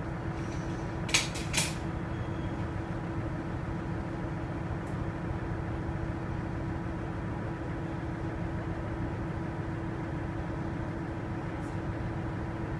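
Diesel railcar idling at a standstill, heard from inside the driver's cab: a steady low engine rumble with a steady hum over it. Two sharp clicks about a second in.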